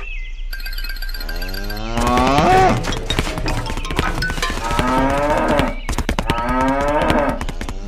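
Cow mooing: three moos, the first long and rising in pitch, the next two shorter.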